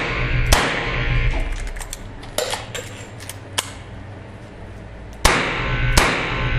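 Revolver shots: one about half a second in, then a pause of about four seconds with a few sharp metallic clicks and clinks, then two shots near the end, each shot ringing out briefly.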